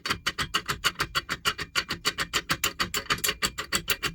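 Self-impressioning lock pick worked rapidly back and forth in a six-lever Elbor lever lock, giving a fast, even train of metallic clicks, about ten a second, while it sets the levers to open the second turn of the bolt.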